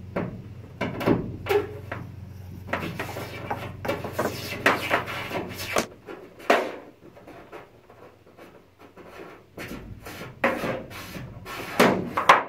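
Cables being fed through drilled holes in a van's metal roof: irregular rubbing and scraping with scattered knocks and clicks as the wire is pushed through and handled.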